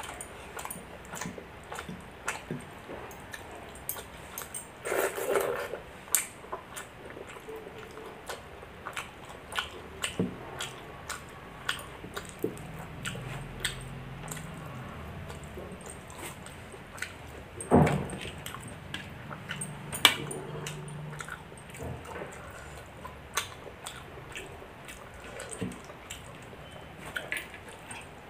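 Close-up eating sounds of soft milk rice and vegetable dishes: wet chewing with many short smacking clicks from the mouth, two of them louder past the middle.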